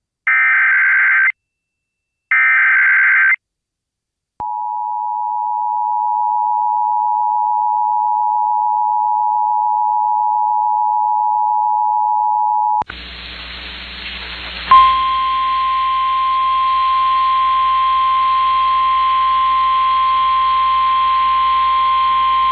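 Emergency Alert System tones: two short buzzing SAME data bursts of about a second each, then the two-tone EAS attention signal held steadily for about eight seconds. It cuts to radio hiss, and about two seconds later, with a sharp click, the single steady NOAA Weather Radio warning alarm tone starts over the static.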